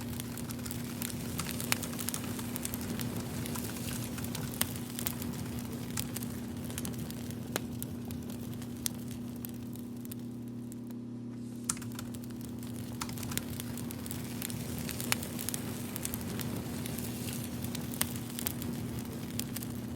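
Campfire crackling, with irregular sharp pops, over a steady low hum.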